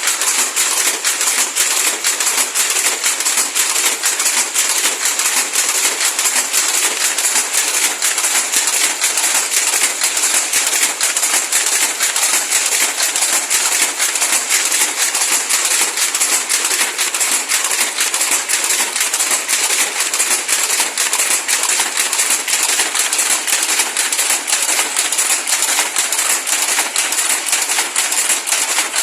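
A weaving machine (power loom) running with a steady, dense clatter of rapid clicks.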